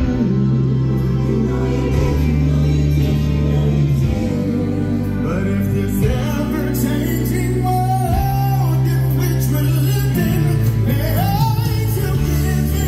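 Music with singing over sustained, held low notes, the melody wavering and gliding above them.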